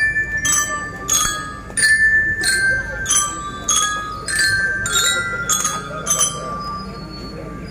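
Marching bells (bell-lyre glockenspiel) of a school drum band struck with mallets: a run of single ringing notes, about two or three a second, that thins out about six seconds in.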